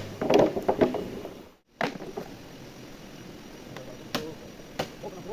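A brief bit of voice, then after a short cut a series of irregular sharp knocks or taps, roughly one every half second to a second.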